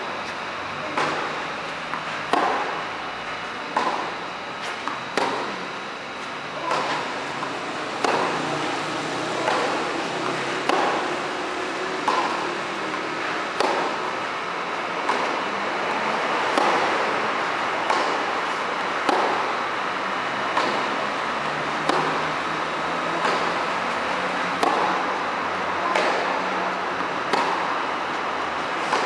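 Tennis balls struck by rackets in a baseline rally on an indoor clay court: a sharp hit about every second and a half, each echoing in the covered hall, over a steady hiss.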